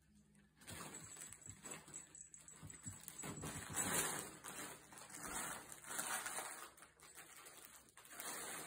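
Fabric fish-shaped cat tunnel rustling and sliding on a hardwood floor as a kitten scrambles through it and shoves it along, in uneven bursts, loudest about four seconds in.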